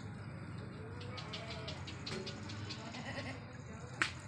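Beetal goats bleating several times over a steady low hum, with a sharp click or knock near the end.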